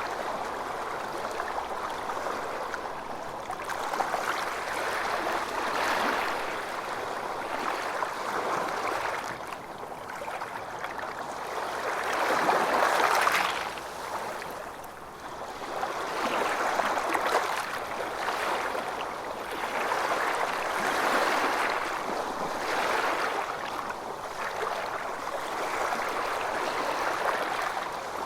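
Ocean waves washing ashore: a continuous rushing of surf that swells and ebbs every few seconds, with the loudest surge about halfway through.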